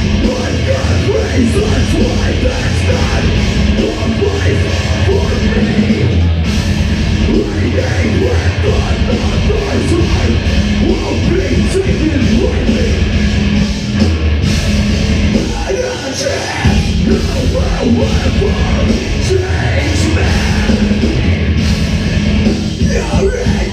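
A heavy rock band playing loudly live, with a brief drop in level about sixteen seconds in.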